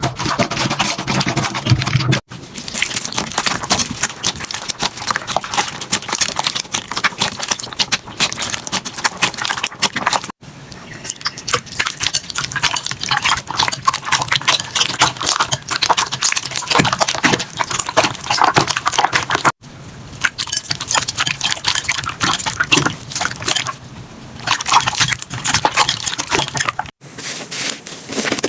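Slime being squeezed, poked and stretched by hand, making quick wet clicking, popping and crackling sounds. It comes in several short takes that break off sharply three or four times.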